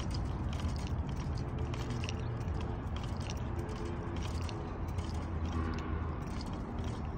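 Steady low hum of a small motor, with faint pitched whines coming and going and light clicking and rattling over rough pavement.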